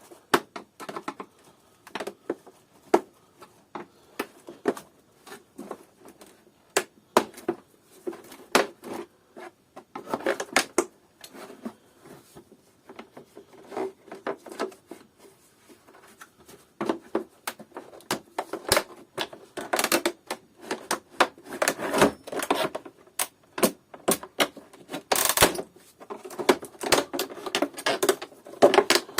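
Irregular clicks, knocks and scraping of hand tools working on the hard plastic housing of a Kärcher DS5500 vacuum cleaner as it is forced apart, busier and louder in the second half.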